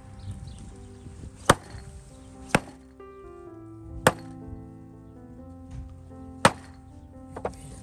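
Heavy knife chopping through goose pieces on a wooden stump chopping block: four sharp chops spaced one to two seconds apart, then a lighter one near the end. Soft background music plays underneath.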